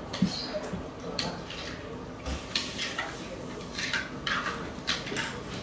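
A spoon clinking and scraping against a bowl of oatmeal, a series of short irregular taps.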